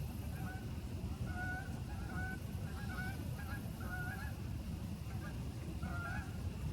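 Geese honking: a string of short calls, several in quick succession in the first four seconds and another about six seconds in, over a steady low rumble.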